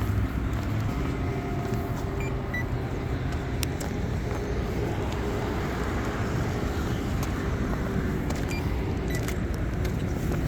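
Steady road traffic: cars passing at an intersection.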